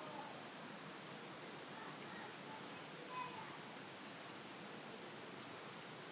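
Steady rush of falling water, with a few faint distant voices.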